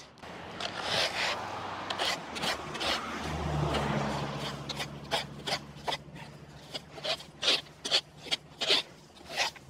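Rake scraping grass clippings across brick pavers in short, repeated strokes. A low hum swells and fades around the middle.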